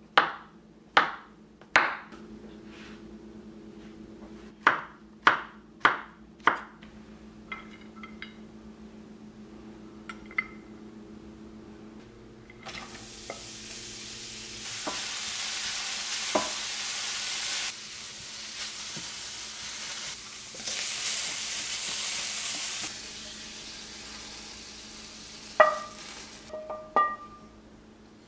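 Kitchen knife slicing mushrooms and vegetables on a wooden cutting board: about seven sharp knocks of the blade on the board. Then julienned zucchini sizzling in a frying pan as it is stirred, the sizzle swelling twice. Near the end come a few ringing clinks against a ceramic plate as the cooked vegetables are served.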